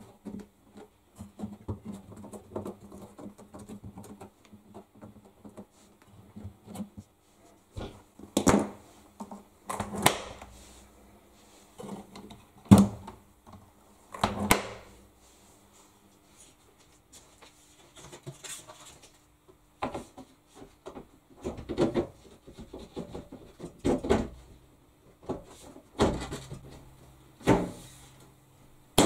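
Knocks, clunks and rubbing from a front-loading washing machine being handled: its door and rubber door seal worked by hand and the door shut, then a run of heavier thumps as the machine itself is moved.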